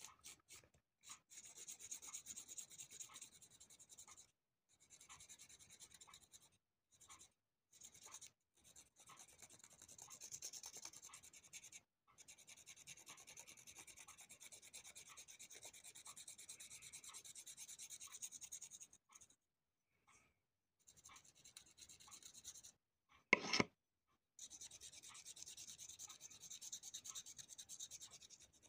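Small knife blade scraping the skin off a fresh dandelion root, a fine raspy scratching in long stretches with short pauses. About three-quarters of the way through there is one brief, louder bump.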